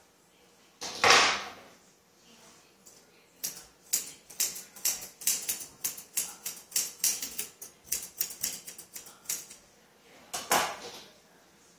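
Grooming scissors snipping a Yorkshire Terrier's coat in a quick run of crisp clicks, about three a second, for several seconds. There is a short rustling burst about a second in and another near the end.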